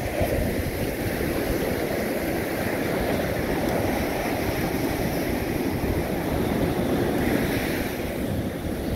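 Ocean surf breaking and washing up the sand in a steady rush.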